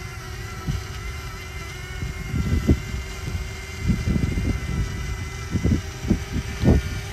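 DJI Mavic Mini (first generation) hovering a few feet off the ground, its propellers giving a steady hum. Irregular low gusts buffet the microphone, stronger in the second half.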